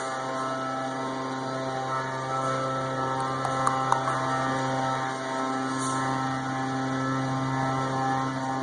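A steady machine hum at one even pitch, with a few faint clicks about three to four seconds in.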